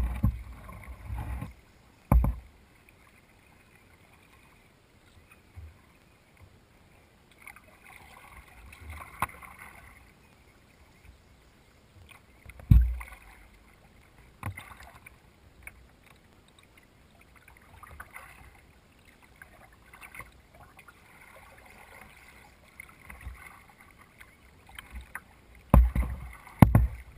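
Kayak paddling on a calm river: paddle blades dipping and splashing in short, recurring strokes, with a few dull thumps against the kayak, the loudest about halfway through and several close together near the end.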